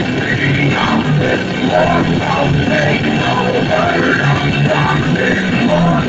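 Loud rock music playing steadily, with guitar and drums.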